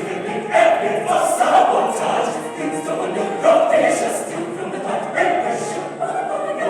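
A choir singing, many voices together.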